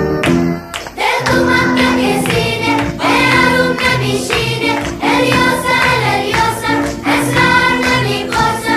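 Background music: a song with voices singing over an accompaniment, the singing coming in about a second in.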